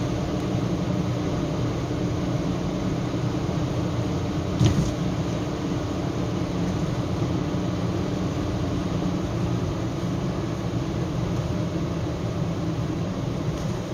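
Steady, noisy car-interior sound of a moving car, engine and tyre-on-road noise picked up inside the cabin, with one brief thump about five seconds in.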